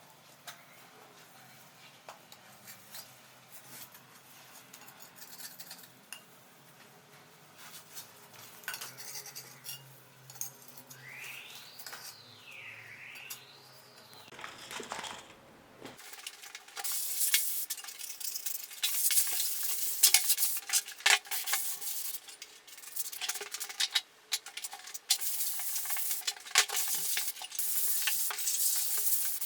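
A putty knife scraping and peeling wet wallpaper off a wall, soft and intermittent at first. About halfway through it turns into louder, rapid scraping with many sharp scratches as the wall is scraped clean of leftover paper.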